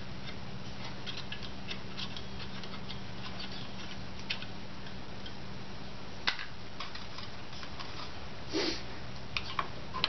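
Scattered light clicks and taps of brake parts and hand tools being handled at a drum brake backing plate, with a sharper click about six seconds in and a brief scrape a little after eight seconds. A steady low hum runs underneath.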